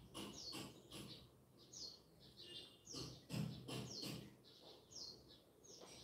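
Small birds chirping faintly: short, high, falling chirps, about two a second.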